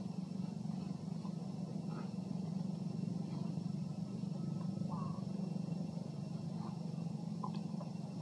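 Steady low rumble of a running engine, with a few faint, brief chirps over it.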